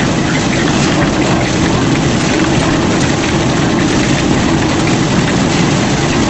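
Steady machinery noise with a continuous low hum, running evenly without a break.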